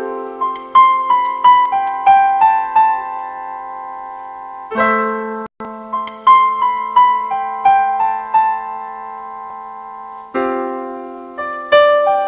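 Solo piano playing a slow instrumental interlude: a held chord struck about every five and a half seconds, each followed by a short line of single melody notes. The sound cuts out briefly just after five seconds in.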